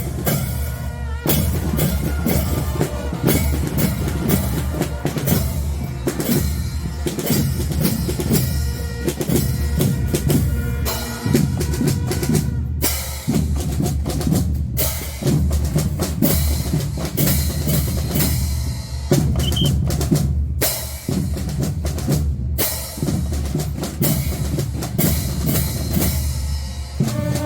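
Fanfare band's drum section playing: bass drums and snare drums beating a steady, driving rhythm, with a few very short breaks.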